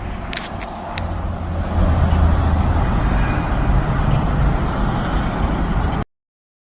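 Strong wind rushing and buffeting against the microphone in a heavy rumble, gusting louder about two seconds in, with a few faint clicks near the start. The sound cuts off abruptly near the end.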